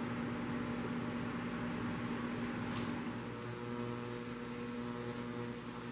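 Steady mechanical hum with a low, even tone, like a fan or similar machine running in a small room. A single short click comes near the middle, after which a higher hiss joins in.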